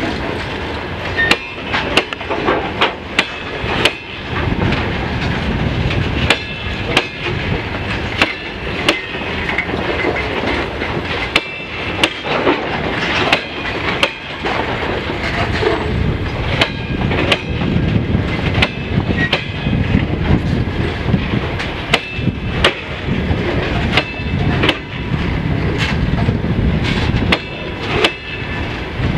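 Freight train wagons rolling past, steel wheels clacking over rail joints in a quick uneven run of sharp knocks over a steady rumble, with a faint high squeal from the wheels now and then.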